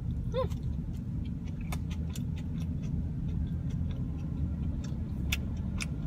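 Steady low road and engine rumble inside a moving car's cabin, with scattered light clicks.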